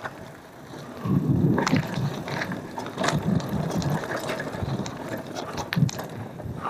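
Cube Analog mountain bike riding over a dirt trail: tyre rumble on the ground, with irregular clicks and rattles from the bike over bumps. The rumble grows louder about a second in.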